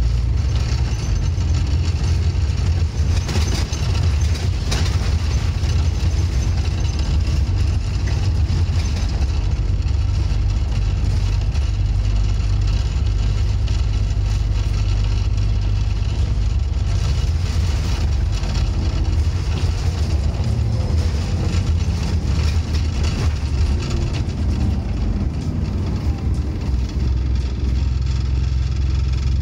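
Scania N230UD OmniCity double-deck bus's five-cylinder diesel engine running steadily as the bus drives along, heard from inside the passenger saloon, with a low growl.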